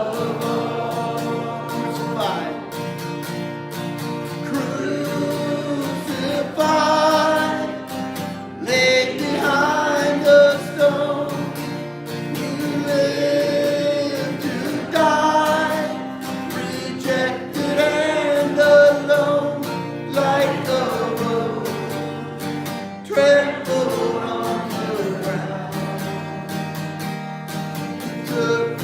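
Worship music: a singer over guitar accompaniment, with long held notes between phrases.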